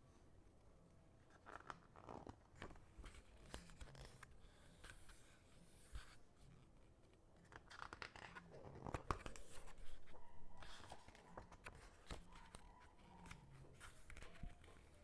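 Faint handling noises as merchandise packaging is opened: scattered small clicks and rustles, busiest and loudest about eight to ten seconds in.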